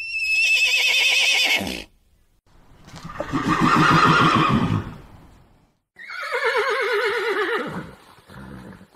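Mustang (horse) whinnying three times. The first and last calls waver and fall in pitch; the middle one is lower and rougher.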